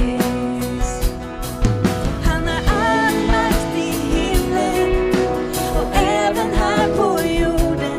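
Live band playing a worship song: acoustic guitar, electric guitar and drum kit with regular drum hits, under a sung melody.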